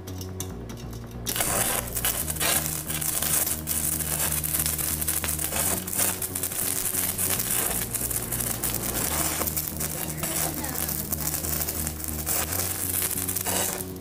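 Arc welding with a sparkler's wire used as the electrode on an inverter stick welder: the arc crackles densely, starting about a second in and stopping shortly before the end. Background music runs underneath.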